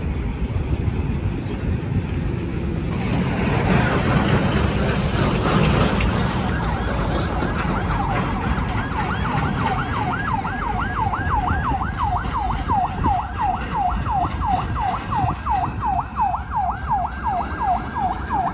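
Ambulance siren in a fast yelp, sweeping up and down about three times a second, coming in about six seconds in and running on over steady traffic and wind noise. A few seconds in there is a louder rush of road noise.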